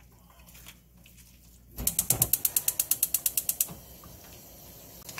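Gas hob's spark igniter clicking rapidly, about ten clicks a second for nearly two seconds, as the burner is relit, followed by the soft steady hiss of the burning gas.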